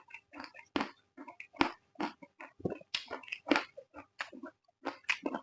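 Close-miked chewing of raw vegetables with the mouth open: quick, irregular wet smacks and crunches, several a second.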